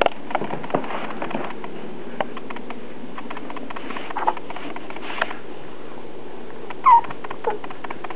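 A pug whining in short, high, falling whimpers, the loudest near the end, over a steady hiss with light clicks. He is frustrated at not being able to get a toy mouse out of a cat toy.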